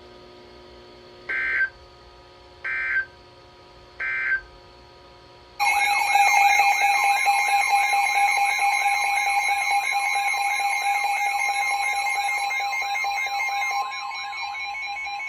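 Emergency Alert System header: three short bursts of SAME data tones about a second and a half apart. A loud, steady EAS attention tone follows, starting about five and a half seconds in.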